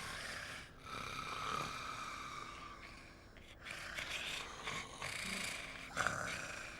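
Teletubbies snoring in their sleep: slow, breathy snores with short pauses between breaths.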